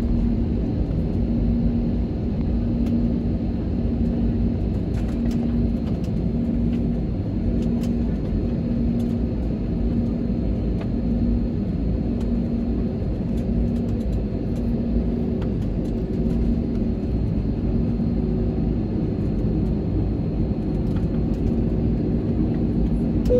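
An airliner's engines running with a steady low rumble and a thin, steady high whine as the plane rolls on the ground after landing. A faint tone in the rumble pulses about once a second.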